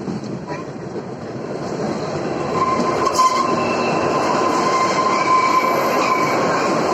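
Kalka–Shimla narrow-gauge toy train running on the track, with a rumble from the wheels and cars. About a third of the way in, the wheels start a steady high squeal and the sound grows louder.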